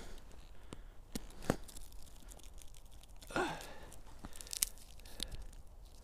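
A few crunching footsteps on thin snow over forest litter, one breath or sniff a little past halfway, then light crackling as a pine cone is picked up from the snowy ground.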